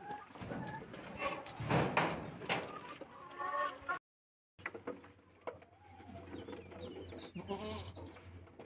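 Chickens clucking in short, repeated calls, with a loud noisy burst about two seconds in. A brief gap of total silence comes about four seconds in, and after it a steady low hum runs under the clucking.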